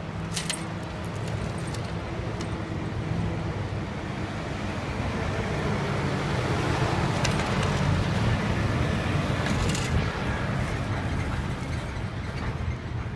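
City street traffic and road noise heard while riding a bicycle: a steady low rumble and hiss that swells to its loudest about eight seconds in and then eases, with a few short clicks.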